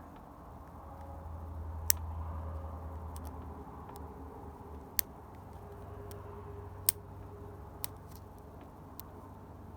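Sharp, isolated metal clicks, about five spread out, of a hook pick working the pin tumblers in a padlock's keyway under tension. A low steady hum runs underneath.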